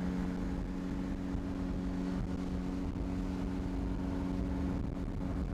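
Vehicle engine running at a steady pitch with a low rumble, as heard riding on the roof of a moving car.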